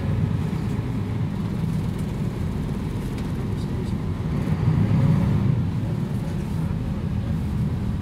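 Mercedes-Benz O 405 G articulated city bus's six-cylinder diesel engine running, heard from inside the bus as a steady low rumble that briefly grows louder about five seconds in.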